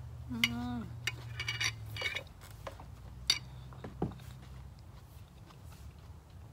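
Close-up eating sounds: a spoon click, a short falling hummed "mm", then wet lip-smacking and chewing clicks from a mouthful of raw salmon salad, thinning out to quieter chewing after about three seconds.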